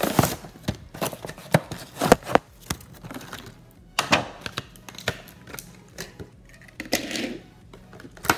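Plastic blister packaging of a die-cast toy car being handled, giving an uneven string of sharp clicks and crackles.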